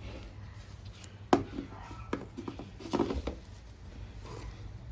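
Sharp clicks and knocks of a screwdriver and carburetor parts being handled as a lawnmower carburetor is taken apart: the loudest knock about a second and a half in, then a quick cluster around three seconds.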